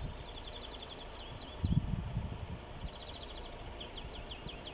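A songbird singing the same short phrase twice: a quick run of high notes followed by three downward-slurred notes. A brief low rumble comes about halfway through.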